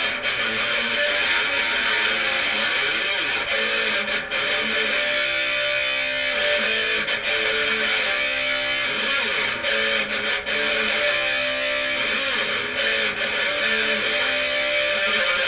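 Electric guitar played through a Marshall 5210 solid-state amplifier: strummed chords and shifting notes in one continuous passage.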